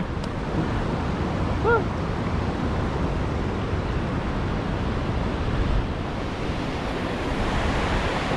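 Steady rushing of water flowing over a low concrete dam and across its spillway apron, with some wind on the microphone.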